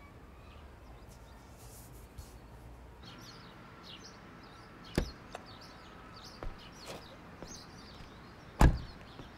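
Small birds chirping, with a sharp knock about five seconds in and a heavier, louder thump near the end.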